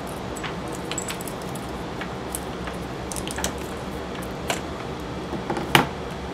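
Loose chainsaw chain clinking and rattling as its links are lifted off the guide bar by hand, with one sharper clack near the end.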